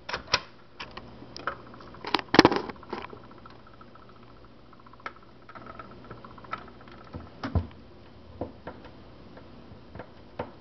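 Automatic record changer cycling: irregular clicks and clunks of the changer mechanism as the tonearm swings over and lowers onto a 7-inch single, the loudest knock about two seconds in. A faint steady hum runs underneath.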